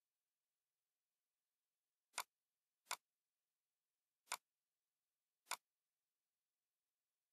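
Four short, sharp computer mouse clicks, irregularly spaced, against near silence.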